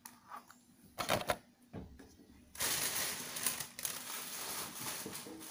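A few clicks and knocks of stationery items being handled, the loudest about a second in. From about two and a half seconds in comes a dense rustling clatter of rummaging through stationery and its plastic packaging.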